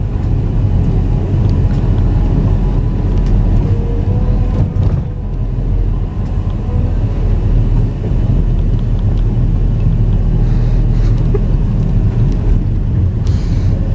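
Steady low rumble of wind on the microphone, with sea surf beneath it.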